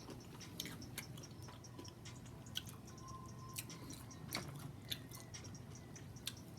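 A person chewing food close to the microphone, with scattered wet mouth clicks and smacks about once or twice a second.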